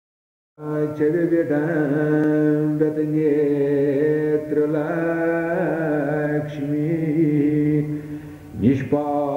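Chant-style devotional music: a bending melody over a steady drone, starting about half a second in, with a brief dip and a quick rising slide near the end.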